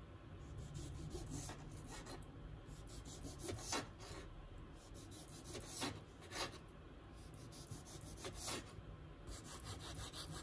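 Kitchen knife slicing a pickled gherkin on a wooden cutting board: a faint run of separate, irregularly spaced cuts, each a short crisp stroke of the blade through the pickle onto the wood.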